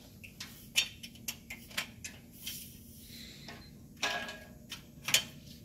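A series of sharp metal clicks and knocks, some with a short ring, as a steel shelving center rail is fitted with its end tabs into the slotted uprights of an end cap.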